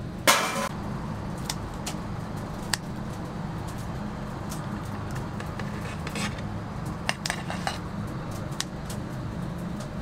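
Kitchen scissors snipping through a crisp-skinned whole roast chicken on a plate: sharp clicks, several in quick succession a little after the middle. A loud ringing clink of dishware comes just after the start, over a steady low hum of background noise.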